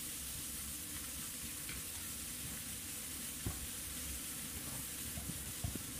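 Spaghetti sizzling steadily in oil and butter in a hot nonstick pan, with a couple of faint light ticks.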